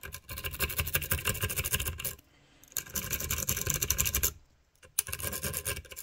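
Multipick steel wave rake scrubbed rapidly in and out of a cruciform safe lock against tension, scraping over the side rows of pins. It comes in three bursts of fast scraping, with short breaks about two seconds in and again about four and a half seconds in.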